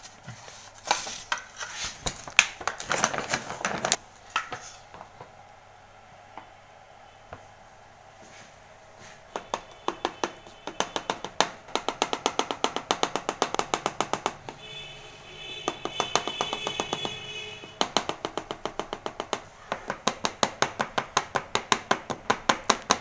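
Plastic parts of a laser toner cartridge clattering as they are handled. From about a third of the way in comes rapid, even tapping, several taps a second, as the cartridge and toner bottle are knocked to settle the toner powder into the hopper while it is being filled.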